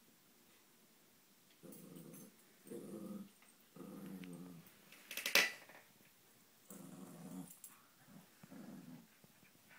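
Dog play-growling in about five short, low bouts, with one brief, loud, sharp yip about five seconds in.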